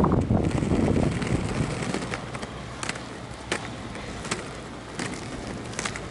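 Roller skate wheels rolling on a road surface, with a louder low rumble in the first second or so that eases off. Sharp ticks follow at a steady pace, roughly every two-thirds of a second, from about two seconds in.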